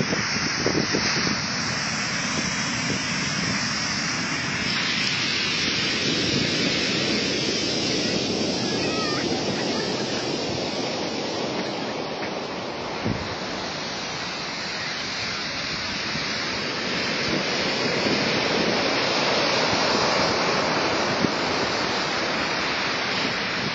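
Ocean surf breaking and washing up a black sand beach: a continuous rushing wash that slowly swells and eases over several seconds.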